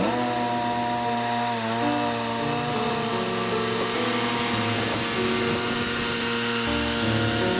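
Wood-Mizer LT40 band sawmill running steadily as its blade cuts through a timber.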